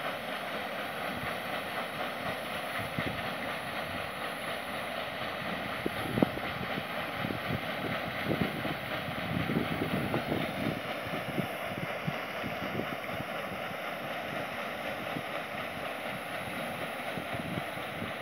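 Side-wheel paddle steamer Leipzig passing close by, its paddle wheels churning the river in a steady wash of water noise. Wind gusts on the microphone throughout, with a single knock about six seconds in.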